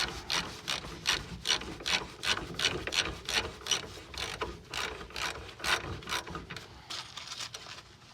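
Hand ratchet wrench clicking in an even run of about three to four clicks a second as the nut on a rear shock absorber's lower mounting bolt is tightened.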